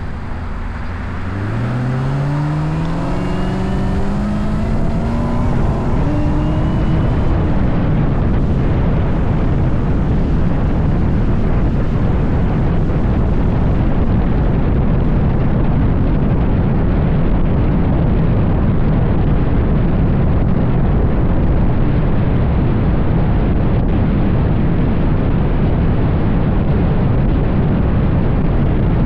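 Chevrolet Camaro V8 accelerating hard, its engine pitch rising for the first several seconds with a break about five seconds in, like a gear change, then a steady loud mix of engine, tyre and wind noise at speed.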